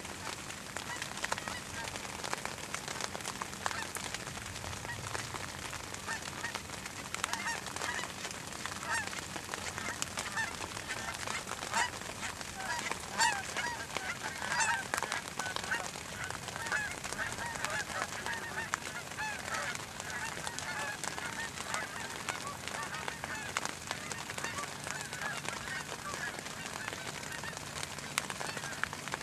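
A flock of geese honking in flight, many overlapping calls, loudest and thickest about halfway through as the birds pass closest.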